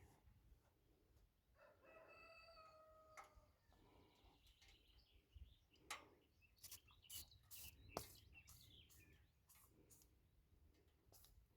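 A rooster crowing faintly once, a held call of about a second and a half, about two seconds in. Scattered light clicks and taps follow in the second half.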